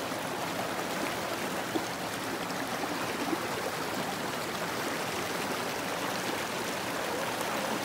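Shallow stream water rushing and splashing over rocks in a small cascade, close to the microphone, a steady unbroken rush.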